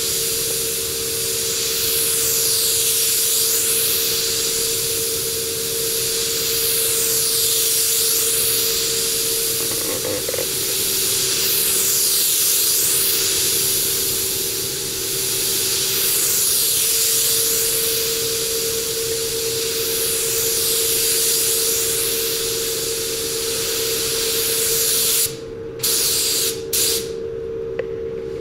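Gravity-feed spray gun hissing as compressed air atomises clear coat. The hiss swells and shifts in pitch with each pass of the gun, about every three to four seconds, over a steady hum. Near the end the hiss cuts out briefly a few times as the trigger is let off.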